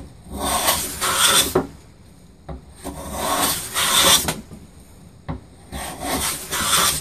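Hand plane cutting along a wooden board in three long strokes, each about a second and a half, with short pauses between.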